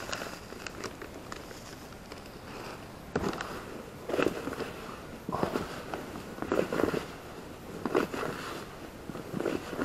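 Hands mixing and squeezing damp, crumbly groundbait in a plastic tub. Irregular soft squishes and rustles come about once a second from about three seconds in.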